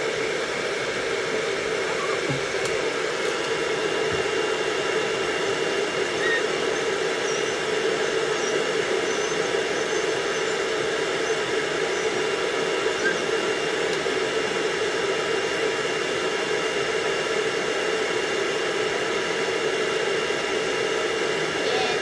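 Pet grooming dryer running steadily: a constant rush of air with a steady hum, joined a few seconds in by a faint high whine.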